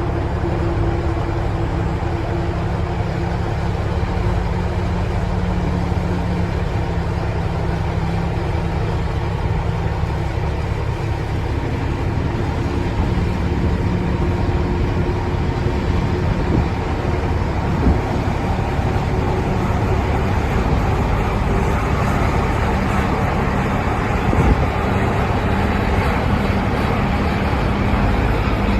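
Heavy farm machinery running steadily, a diesel engine's drone under mechanical noise. The engine's tone shifts about eleven seconds in, and a few light knocks come through near the end.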